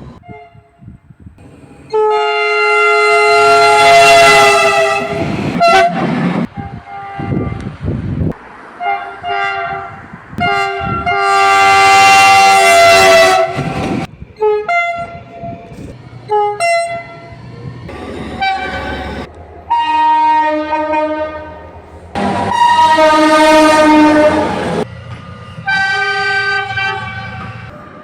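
Train horns sounding a series of blasts, each a chord of several steady tones. Three long, loud blasts of three to four seconds each are separated by shorter toots, and the chord changes pitch from one horn to the next.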